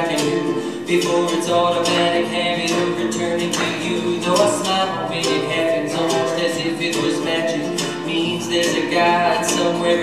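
Live acoustic folk-pop band playing: a male lead voice sings over strummed acoustic guitar and ukulele, with upright double bass underneath, in a steady strumming rhythm.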